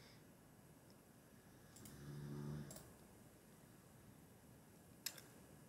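A few faint computer mouse clicks over quiet room tone. About two seconds in there is a brief low hum.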